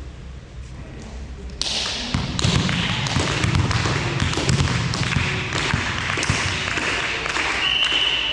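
Volleyball play in a sports hall: the ball thuds and taps, with the clatter of players moving on court, starting about a second and a half in. A short high-pitched tone sounds near the end.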